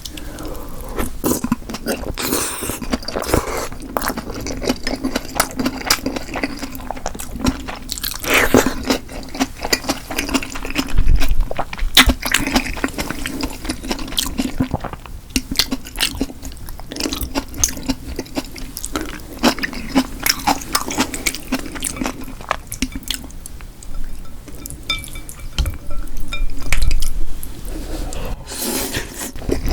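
Close-miked eating sounds: chewing with wet mouth sounds and many small clicks, over a steady low hum.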